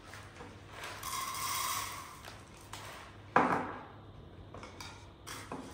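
Light knocks and handling noise, with one sharper, louder knock about three and a half seconds in.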